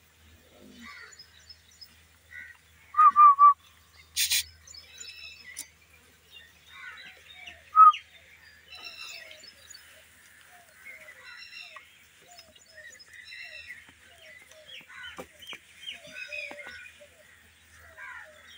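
Puppies squeaking and whimpering: a run of many short, high squeaks, loudest as three sharp yelps in quick succession about three seconds in and a single one near eight seconds. A brief sharp click or scrape comes just after four seconds.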